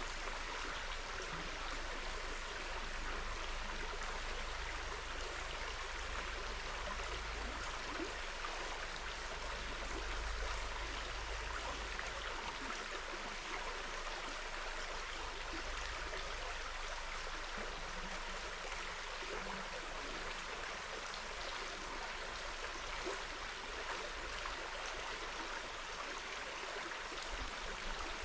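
River water running steadily, an even rushing sound, with a low rumble underneath.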